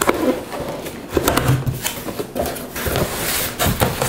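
Large cardboard appliance box being handled and opened: irregular rustling, scraping and knocks of cardboard.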